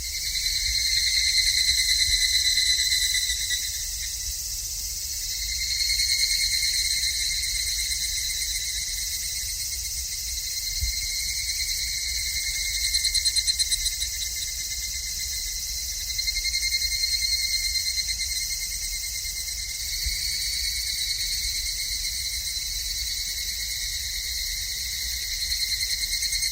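Cicadas buzzing in a continuous high-pitched drone that swells louder and eases off every few seconds.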